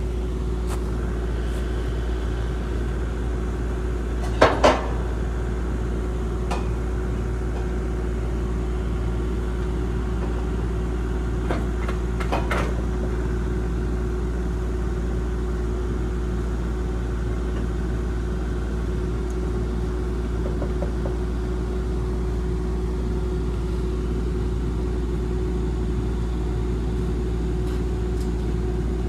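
Kubota mini excavator's diesel engine idling steadily. A couple of sharp metallic knocks come about four and a half seconds in, with lighter ones around twelve seconds.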